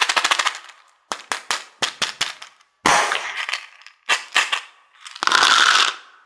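Small hard-shelled chocolate candies clattering against hard plastic as a toy capsule is handled, opened and its candies tipped into plastic toy bathtubs. Sharp clicks and short rattles, with a denser pouring rattle near the end.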